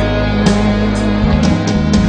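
Rock song with electric guitar and drums, an instrumental passage without vocals and a steady beat.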